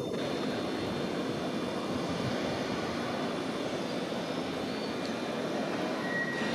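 Class 319 electric multiple unit running slowly into a station platform: a steady low rumble from the train under the station roof. A faint high whine comes in near the end.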